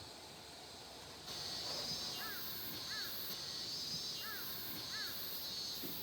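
Cicadas and other insects buzzing in a shrill chorus that swells in about a second in, pulsing on and off at the top. Over it a bird gives four short arched calls in two pairs.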